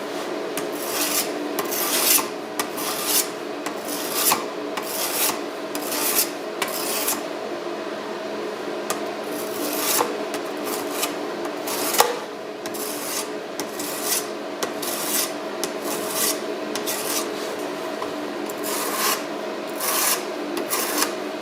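Copper knife blade being worked by hand with an abrasive, in irregular back-and-forth scraping strokes about one or two a second, over a steady hum. Two sharp clicks partway through.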